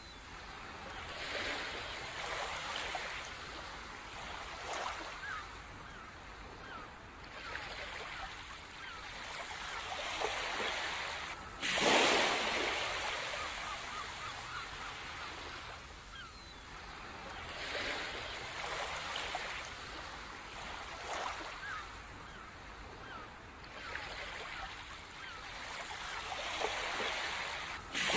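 Ocean surf: waves breaking and washing up a beach in slow surges every few seconds, the strongest about twelve seconds in and again at the very end.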